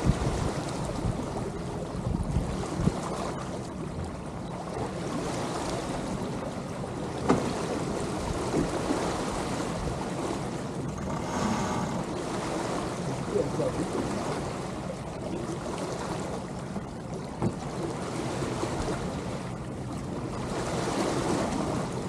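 Water rushing and lapping along the hulls of a sailing catamaran moving in light wind, with steady wind noise on the microphone and a couple of small knocks.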